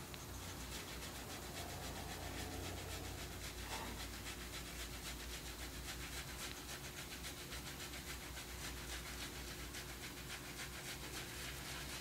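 Faint, steady rubbing and scratching of gauze being scrubbed over a horse's hind leg at the hock, over a low steady hum.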